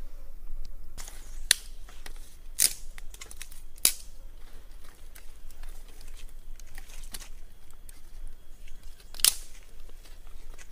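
Dry sticks clicking and snapping as they are laid onto a small wood fire, with four sharp, louder snaps spread through and lighter clicks between.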